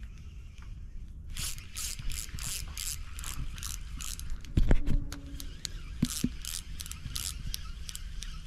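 Spinning reel being cranked to retrieve line, its gears clicking steadily about four times a second, starting about a second in. A loud knock comes near the middle.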